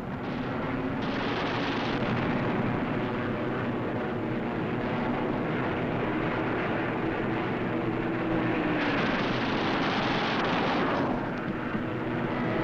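Aircraft engine drone mixed with continuous rapid machine-gun fire, the added sound effects of an old film soundtrack. The fire is at its harshest from about nine to eleven seconds in.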